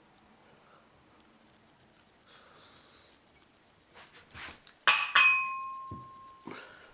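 A utensil striking a mixing bowl twice in quick succession about five seconds in, the bowl ringing on with a clear tone for over a second, with a few light clicks and knocks around it as custard is added to cake batter.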